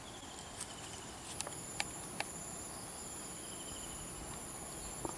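Insects chirring in a steady high-pitched drone that grows stronger about a second and a half in, with a few faint clicks scattered through it.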